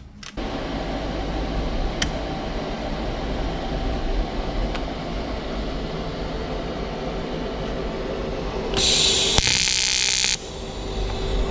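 TIG welding arc on stainless steel: a loud, bright hiss about nine seconds in that lasts about a second and a half, then cuts off. Under it runs a steady hum.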